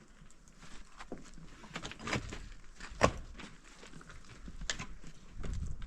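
A string of irregular knocks and clicks, with one sharper knock about three seconds in.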